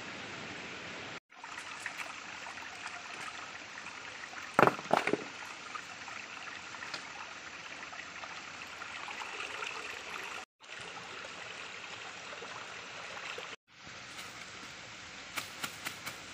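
Small rocky stream running steadily, cutting out briefly three times. About five seconds in, three sharp knocks stand out above the water.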